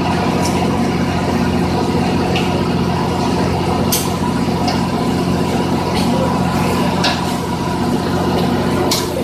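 Steady drone of a running engine, with a handful of short sharp metallic clicks from the pipe vise being worked by hand.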